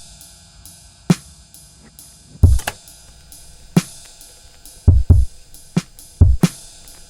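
Music: a sparse drum-kit beat, deep kick-drum hits and sharper snare hits spaced irregularly, over faint held tones.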